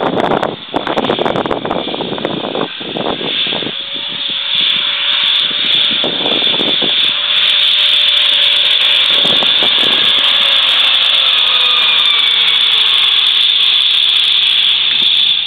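Mitsubishi Canter 4WD bus's diesel engine pulling hard under load up a soft sand hill. A steady high whine builds from about four seconds in and holds loud, over a gusty crackle in the first few seconds.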